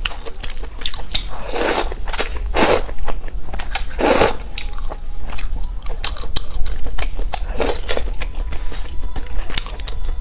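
Close-miked eating of crisp food: several loud crunching bites with wet, clicking chewing in between.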